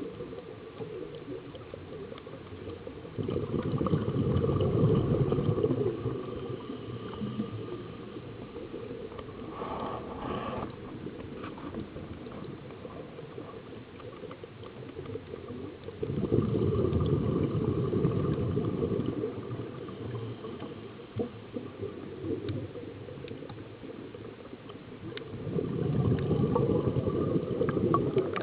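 Scuba regulator exhaust: a diver's exhaled air bubbling out in three long bursts of about three seconds each, roughly ten seconds apart, heard underwater.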